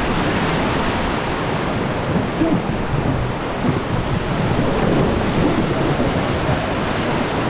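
Loud, steady rush of turbulent river water around a raft, mixed with wind buffeting the microphone.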